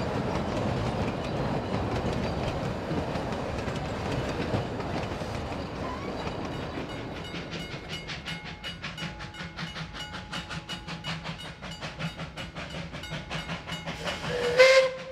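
Narrow-gauge passenger carriages rolling past, their wheels clattering on the rails. About halfway through a level-crossing bell starts ringing in rapid, even strokes, and near the end a steam locomotive's whistle gives one short, loud blast.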